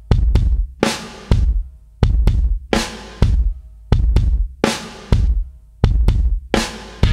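Intro music of heavy, booming drum hits in a slow repeating pattern, about two a second, each hit ringing out before the next.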